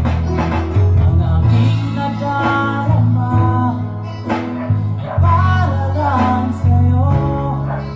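A song with a male singing voice, plucked guitar and heavy bass notes, played through loudspeakers under test: a CV 15-inch speaker and a Midhi 12S8.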